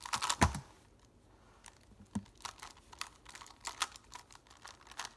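Skewb puzzle being turned rapidly by hand in a speedsolve: a quick, irregular run of plastic clicks as its corners twist, densest in the first second, with one louder knock about half a second in.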